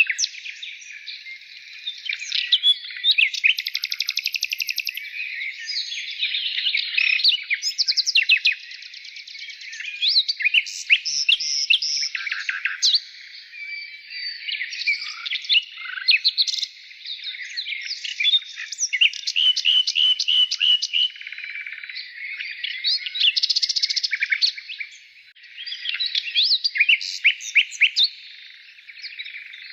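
Songbirds chirping and singing in an overlapping chorus of quick chirps, trills and rapid runs of repeated notes.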